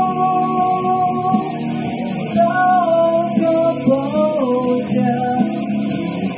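A man singing into a microphone, holding long notes that slide up and down in pitch, over a guitar accompaniment.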